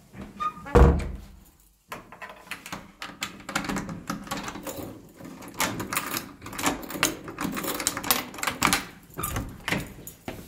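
A wooden door thuds shut a little under a second in. Then a key is turned twice in its mortise lock and the lever handle is tried, with many metallic clicks and rattles. Background music plays throughout.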